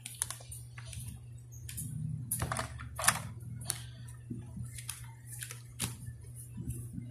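Hands handling clothespin toys on a tabletop: irregular light clicks and taps, the loudest about three seconds in, over a steady low hum.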